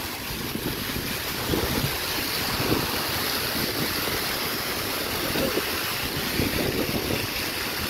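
Water jets and a falling water curtain on a children's splash pad, making a steady hiss of spraying and splashing water. Wind rumbles irregularly on the phone's microphone.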